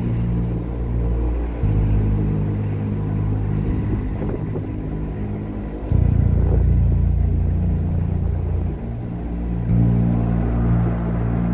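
Low, steady drone of a ship's diesel engine, its hum shifting suddenly in level and tone a few times.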